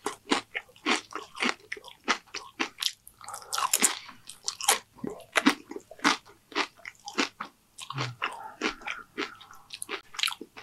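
Close-miked chewing of a mouthful of Dorito nachos: a quick, irregular string of crisp crunches as the chips break between the teeth.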